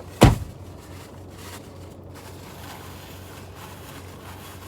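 Car air conditioning running with a steady low hum and hiss inside the cabin, with one sharp knock just after the start.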